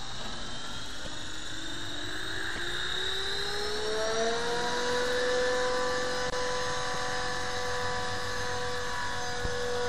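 Radio-controlled aircraft's motor spinning up into flight: a whine rises in pitch over the first few seconds, then levels off into a steady hovering drone.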